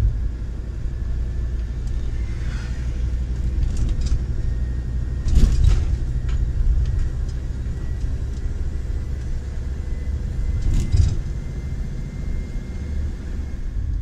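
Motorhome engine and road noise heard from inside the cab while driving, a steady low rumble. Two short knocks or rattles come through, about five and a half seconds in and again about eleven seconds in.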